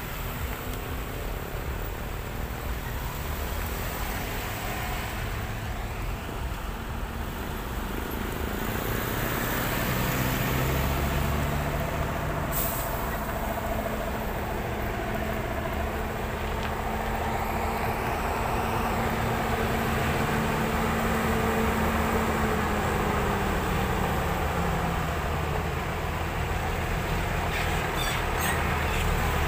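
Heavy truck running on the road with its engine audible over tyre and road noise; the engine grows louder partway through and its pitch falls off about two-thirds of the way in. One sharp click about twelve seconds in.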